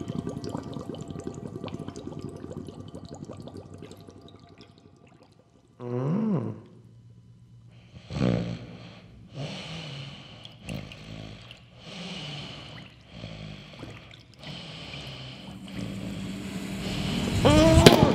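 Added cartoon bubble and water sound effects: a fizzing hiss that fades out over the first five seconds, a short sound sliding up and back down in pitch about six seconds in, then a run of about seven short separate bubbly bursts, ending in a louder sliding sound near the end.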